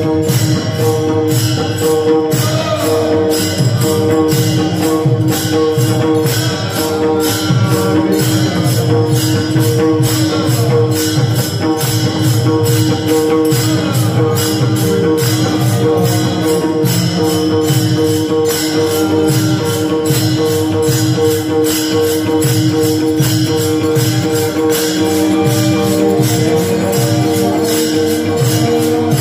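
Many pairs of small brass taal hand cymbals clashed together in a fast, steady rhythm, over a rhythmic drum beat and a steady held drone, as Warkari bhajan accompaniment with little or no singing.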